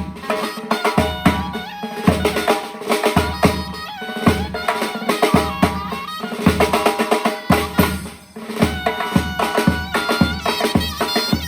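Surnay, the Uzbek shawm, playing a melody with bending, held notes over drum beats.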